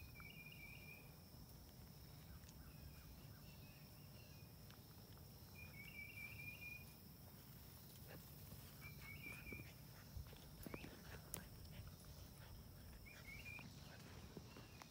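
Quiet outdoor ambience with faint trills of short chirps every few seconds over a steady high hiss, and a few soft taps and rustles about ten to twelve seconds in.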